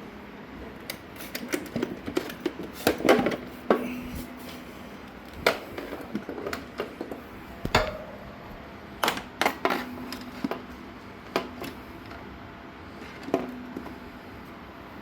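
Scattered clicks, taps and knocks of handling an e-bike battery pack and multimeter probes, some knocks followed by a short low ring.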